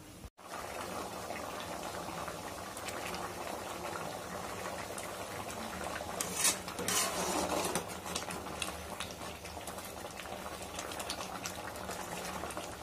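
Black-eyed bean curry in a tamarind-tomato gravy boiling in a pot, a steady bubbling of small pops and plops. The bubbling is briefly louder about six and a half seconds in.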